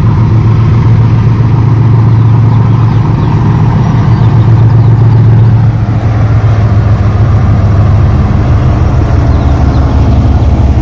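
GE GEU40 diesel-electric locomotive's engine running under power as the train pulls out, a loud, steady low hum.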